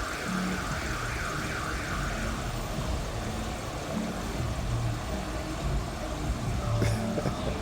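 City street traffic noise running steadily, with a wavering high tone that fades about two seconds in and a sharp knock near the end.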